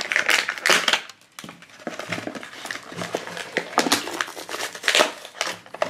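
Plastic and paper packaging of a blind-box toy capsule crinkling and tearing as it is peeled open by hand, in irregular crackly rustles with a short lull about a second in.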